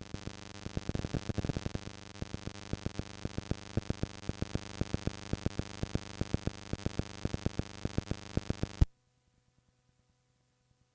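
Cassette tape playback: steady tape hiss with a stream of sharp clicks and crackles, several a second. About nine seconds in it ends with one loud click and cuts off suddenly to near silence.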